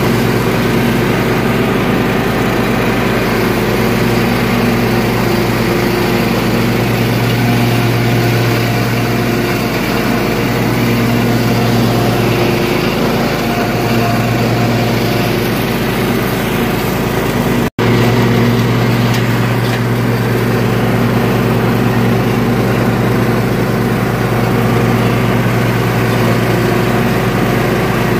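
Toro riding lawn tractor's engine running at a steady speed while mowing thick grass, its mower blades turning.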